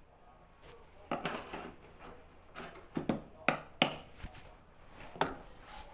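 Parts of a washer-dryer being handled by hand during a repair: a string of about six sharp, irregular clicks and knocks, with a quick pair about three seconds in.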